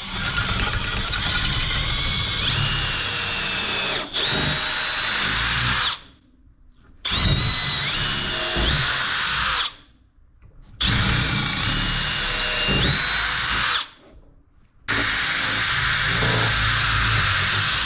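Milwaukee M18 cordless drill running in several bursts with short pauses, its whine stepping up in pitch within each burst, as the bit bores through and is walked around an old rubber suspension bushing to free it from its steel shell.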